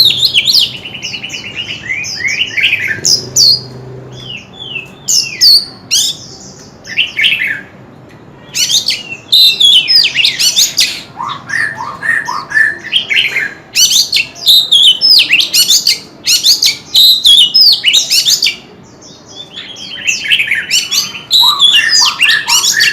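Oriental magpie-robin singing: bouts of fast, varied whistled phrases full of sweeping notes, with a quick trill near the start and short pauses about eight and nineteen seconds in.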